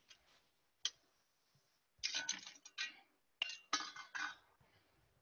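Kitchen utensils clinking and clattering against a mixing bowl: a single click about a second in, then two short bursts of rapid clinks.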